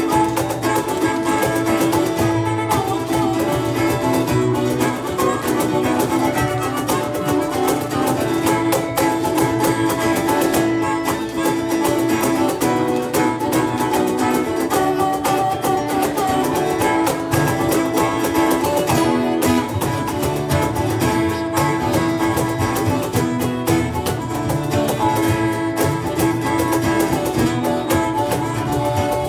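Live band playing with an acoustic guitar, bass guitar and drum kit.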